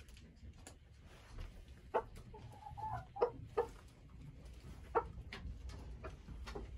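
Icelandic chickens clucking: a few short, sharp clucks and one longer, wavering call about two and a half seconds in.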